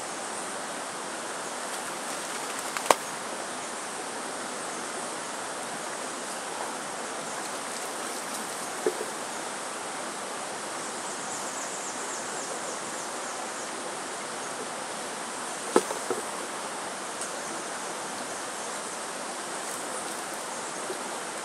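Steady, even outdoor hiss with faint insect buzzing high up, broken by sharp clicks about 3, 9 and 16 seconds in.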